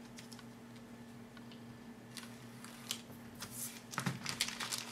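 Clear plastic kit bag crinkling and rustling as a plastic model-kit sprue is slid out of it: quiet at first, then a run of light crackles and rustles from about two seconds in, over a faint steady hum.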